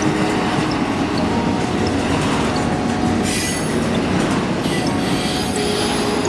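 Intermodal freight train's cars rolling past on steel rails, the wheels squealing with several thin high tones over a steady rumble. A brief brighter hiss comes about three seconds in, and another near the end.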